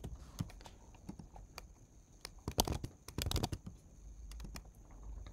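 Typing on a computer keyboard: scattered keystrokes, then a quick run of key presses about two and a half seconds in.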